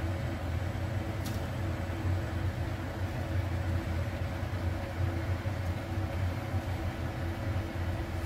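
Steady low mechanical hum with a faint rush of noise over it.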